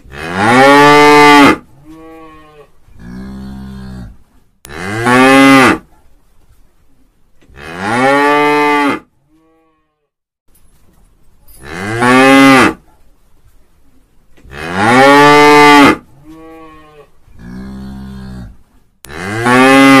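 A cow mooing again and again: six loud, long moos, each rising then falling in pitch, with softer moos in between some of them.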